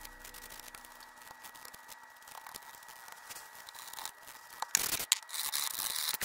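Scratchy rubbing and handling noise from gloved hands wiping cleaned drum-brake parts with a shop towel. It is soft at first, with a louder stretch of scratchy rubbing starting about five seconds in.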